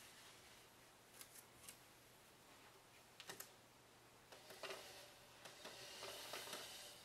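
Faint sounds of things being handled and moved around: a few light taps, a short cluster of clicks about three seconds in, then a longer stretch of rustling from about four and a half seconds in.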